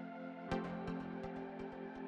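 Background electronic music: steady held synth tones, with a sharp hit about half a second in that starts a fast, even ticking beat.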